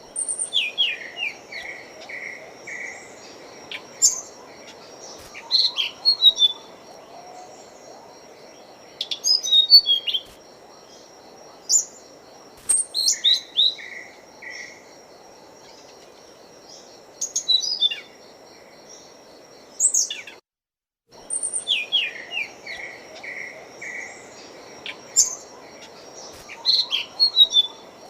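Small songbird chirping and twittering in short, quick phrases of high notes, as a looped masteran recording for training caged birds. A steady, high pulsed trill runs beneath it. After a brief dropout about two-thirds of the way through, the same sequence starts again.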